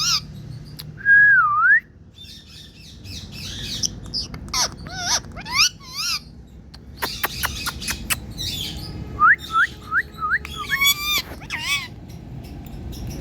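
Indian ringneck parrot whistling and chirping: a string of short calls that sweep up and down in pitch, the loudest a whistle that dips and rises about a second in, with a quick run of short rising whistles and a warbled call later on.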